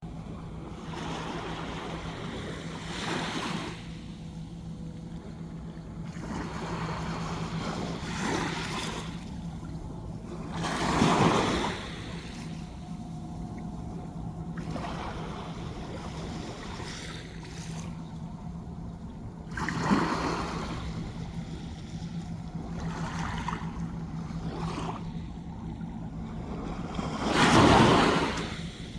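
Sea waves washing onto the shore, each breaker rising in a rush of surf and falling away, the biggest about 11, 20 and 27 seconds in. A steady low hum runs underneath.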